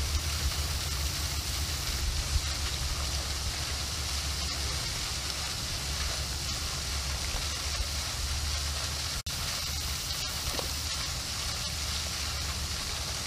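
Steady wind noise on the microphone: a low rumble under an even hiss, cutting out for an instant about nine seconds in.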